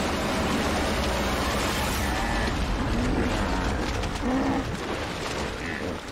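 Heavy splashing and churning water as bull hippopotamuses fight in a river, with a few short low calls from about three seconds in.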